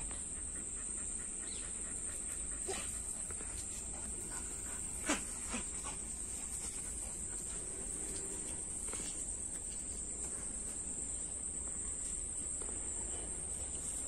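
Steady high-pitched drone of crickets, with a few brief sharp sounds over it, the loudest about five seconds in.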